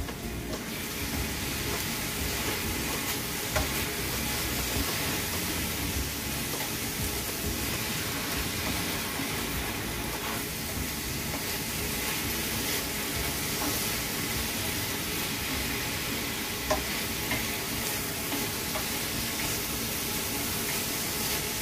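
Marinated beef and onion slices sizzling steadily in a frying pan as they are stir-fried, with a few light clicks of the stirring utensils against the pan.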